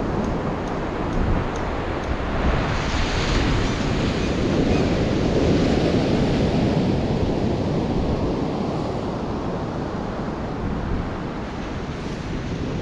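Ocean surf breaking and washing up the beach, with wind buffeting the microphone. The surge builds a few seconds in and eases off toward the end.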